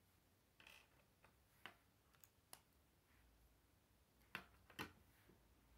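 Plastic K'nex pieces clicking as they are handled and snapped together: a handful of faint, sharp clicks, the loudest two in quick succession about four seconds in.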